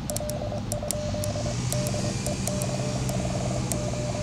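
Morse code (CW) heard through a ham radio receiver: a single steady tone keyed on and off in short and long elements, over receiver noise and a low steady hum, with scattered light clicks.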